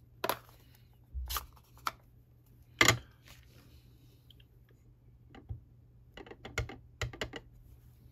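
Plastic clicks and knocks as a Stampin' Pad ink pad is handled, set down and snapped open, the loudest knock about three seconds in. Near the end, a quick run of light taps as a rubber stamp on a clear acrylic block is pressed repeatedly onto the ink pad to ink it.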